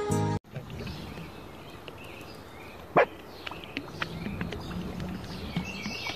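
Water lapping and sloshing around a swimmer, with one short, loud dog bark about three seconds in.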